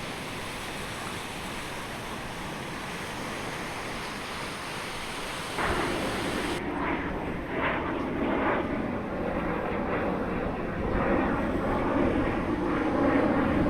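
Outdoor noise of wind on the microphone and surf. About five and a half seconds in it becomes louder and rougher.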